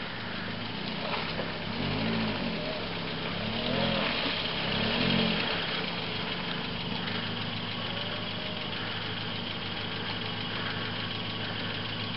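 A 1998 Kia Sportage's 2.0-litre four-cylinder petrol engine heard from outside the vehicle, revved up and down three times in short rises, then running steadily as the 4x4 edges through deep mud.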